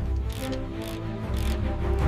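Background music with held tones and a steady bass, with a few short clicks over it.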